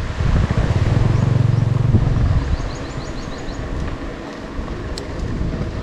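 A motor vehicle's engine close by over wind and road rumble, loudest for the first two seconds and then fading. A quick high trill of about ten chirps follows, and a single sharp click near the end.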